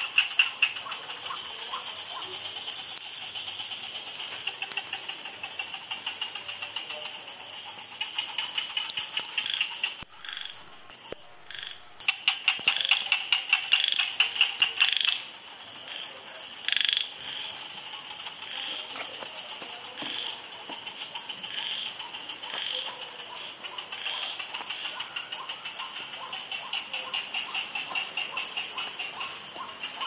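Tropical jungle night chorus: crickets and other insects trilling steadily at a high pitch, with a rapid pulsing chirp beneath. Frogs call in short repeated notes through the middle.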